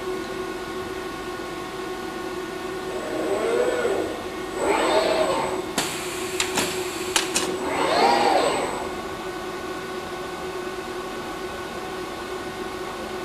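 Steady hum of an automated assembly cell, with a Fanuc industrial robot arm's servo motors whining up and then down in pitch three times as it moves. A quick run of sharp mechanical clacks comes in the middle.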